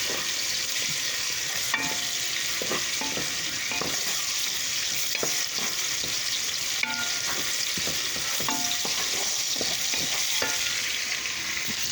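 Food sizzling as it sautés in hot oil in a pan, left to caramelize, with occasional knocks and scrapes of a bamboo spoon stirring it.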